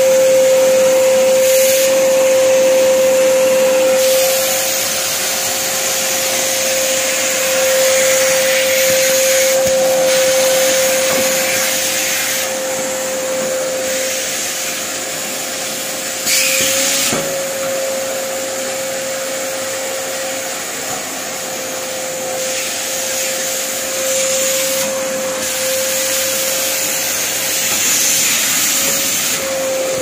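Forbes wet-and-dry canister vacuum cleaner running steadily while vacuuming a floor: a constant rushing suction with a steady pitched whine from the motor. About halfway through there is a brief, louder burst.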